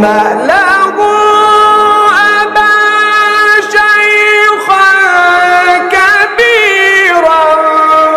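A man reciting the Quran in a melodic, sung style, holding long drawn-out notes that bend between pitches and are decorated with quick trills, with brief breaks for breath.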